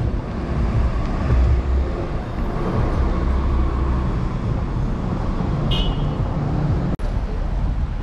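City street traffic noise with a heavy low wind rumble on the microphone of a camera riding on a moving electric scooter. A short high-pitched tone sounds about six seconds in, and the sound drops out for an instant about a second later.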